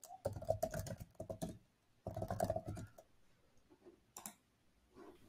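Typing on a computer keyboard in two quick runs of keystrokes, then a few single clicks near the end.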